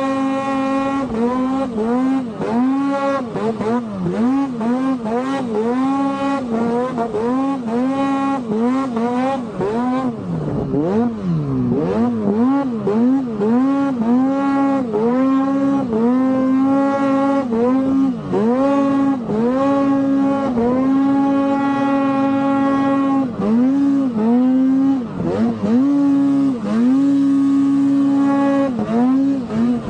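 Snowmobile engine through a GGB aftermarket exhaust, revving hard in deep powder: the pitch rises and falls over and over, about once a second, as the throttle is worked, with a few longer stretches held high and one long drop about ten seconds in.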